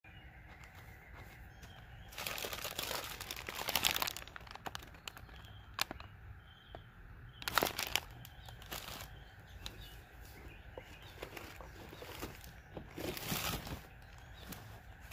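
Plastic bag and food packaging crinkling and rustling as it is handled, in three bursts: about two seconds in, halfway through, and near the end, with a few sharp clicks in between.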